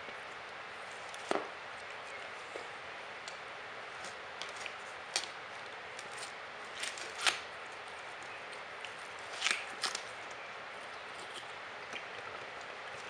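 Capybara biting and chewing juicy watermelon: irregular wet crunches, a handful of them louder in the middle, over a steady hiss.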